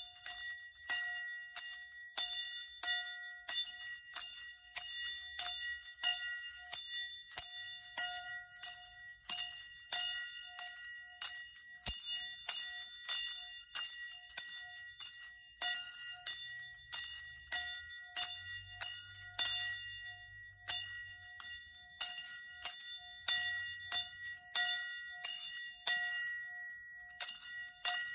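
Small bells struck or shaken over and over, a few strikes a second, each ringing on the same high, bright tones, used as sound-therapy bells.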